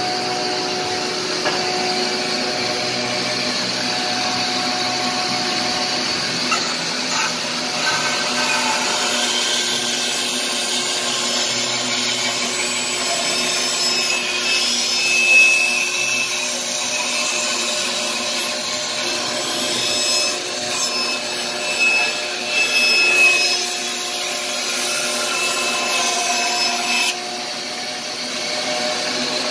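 Bandsaw running and cutting a curve through the edge of a wooden window sash, a steady whir of motor and blade with the sound of the cut rising and falling as the piece is fed. Near the end the higher hiss drops away and a quieter running sound remains.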